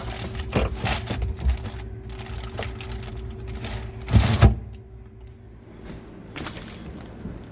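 Irregular clicks and knocks of tools and metal parts being worked on while a dishwasher is disconnected, with a louder cluster of knocks about four seconds in, over a faint steady hum.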